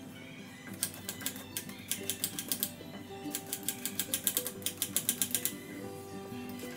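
Rapid scraping strokes of a vegetable peeler along a carrot, in quick runs of clicks that come in three bursts, the longest and loudest from about three to five and a half seconds in. Soft background music plays underneath.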